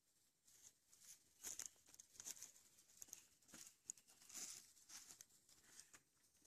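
Faint, scattered crackling and popping of a wood campfire.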